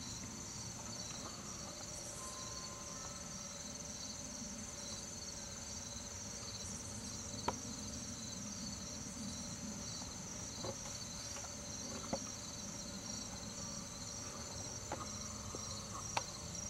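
Steady, high-pitched trilling of crickets, with a few sharp clicks about halfway through and near the end.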